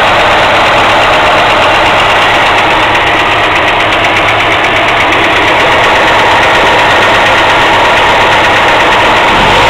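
VAZ (Lada) engine running at a steady idle with a rapid metallic knocking from around the valve cover, by the oil filler cap. The owner says this knock is usually heard on a cold engine.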